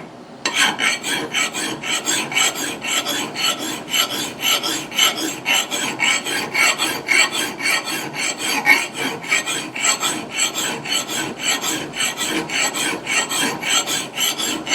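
Single-cut flat lathe file being stroked across a steel axe bit, rapid even rasping strokes about three to four a second as the edge is filed for sharpening. The file is biting smoothly and cutting well: "real buttery".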